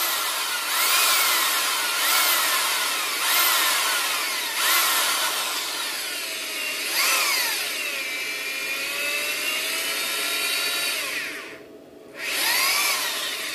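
Power drill boring a hole through a chainsaw's handle down onto a handle bolt. It runs in short trigger pulses, the motor speeding up and slowing down about once a second, then in a longer steadier run. It stops briefly near the end and starts again.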